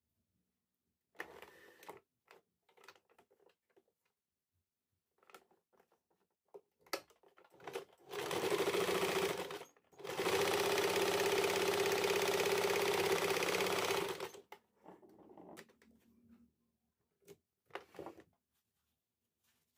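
A small electric motor runs in two bursts, a short one and then a longer one of about four seconds, with a steady pitched hum. Light knocks and handling clicks come before and after.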